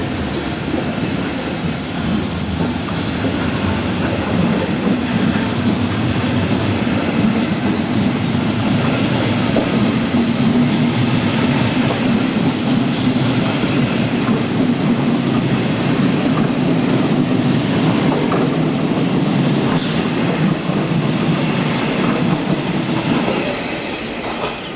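Passenger coaches of a night train rolling past at close range, their wheels rumbling and clacking steadily on the rails. A brief sharp high sound comes near the end, and then the noise falls away as the last coach passes.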